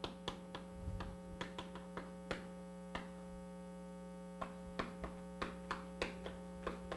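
Chalk tapping and scratching on a blackboard as an equation is written: a string of short irregular clicks, with a pause of about a second and a half midway. Under it runs a steady electrical mains hum.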